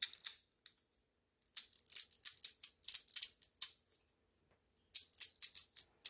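Light, crisp clicking of a 3D-printed plastic lock core being worked by hand with its key, its little magnetic gates and parts snapping, in quick runs of clicks with short pauses between.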